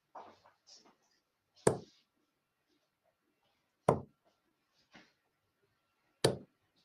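Three steel-tip darts hitting a bristle dartboard one after another, a sharp thud about every two seconds.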